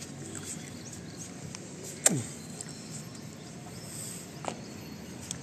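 Wind buffeting a phone microphone, a steady low rumble, with handling knocks as the monkey climbs over the phone-holder; one sharp knock about two seconds in.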